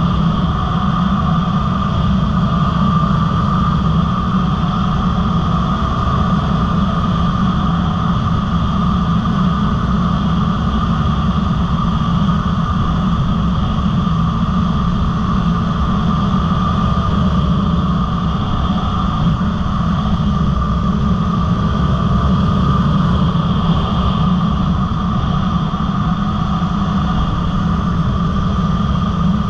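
Dirt bike engine running steadily at cruising speed, with wind buffeting the bike-mounted camera's microphone.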